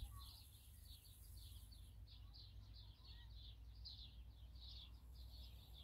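Faint chirping of a small bird, repeated about two to three times a second, over a low steady background rumble.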